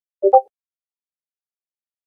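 A quick two-note pop, the second note higher than the first, about a quarter second in: a chat-message sound effect as a new line of text pops into the bubble.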